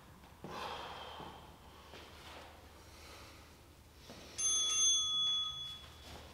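A man breathing hard and exhaling, out of breath after a set. About four seconds in an electronic interval-timer chime sounds once, a steady ringing tone lasting about a second and a half, marking the end of the rest period.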